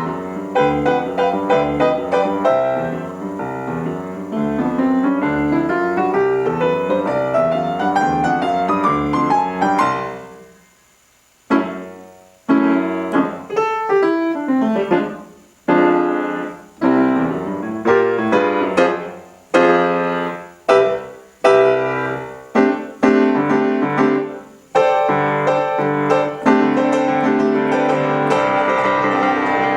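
Solo piano playing: quick running figures with a rising scale, a pause of about a second about ten seconds in, then short detached chords separated by brief silences, settling into held chords near the end.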